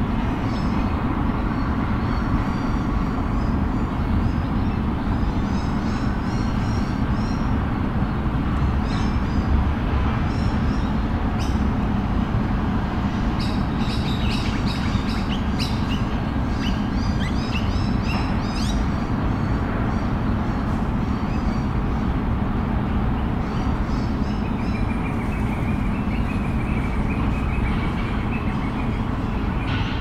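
Small birds chirping and twittering over a steady low rumble of city traffic. The chirps come thickest in the middle and again near the end.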